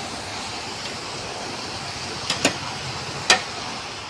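Sliced onions sizzling steadily as they fry on a low flame in a large aluminium pot, being cooked down until soft and golden. A metal spatula clinks against the pot three times in the second half.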